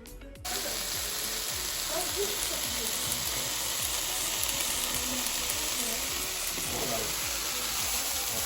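Food sizzling steadily in a frying pan, starting abruptly about half a second in.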